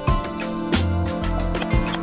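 Background music with a steady beat and a plucked guitar-like melody.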